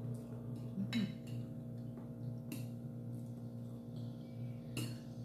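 A few light clinks of a metal spoon against ceramic plates as food is scooped up, over a steady low hum.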